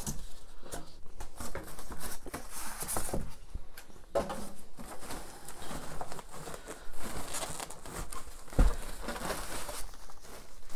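Thin plastic packaging sheet crinkling and rustling in irregular handfuls as it is pulled off a boxed boombox, with a dull thump about eight and a half seconds in.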